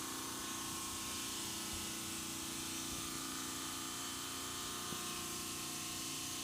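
Steady machine hum with several faint steady tones, no starts or stops.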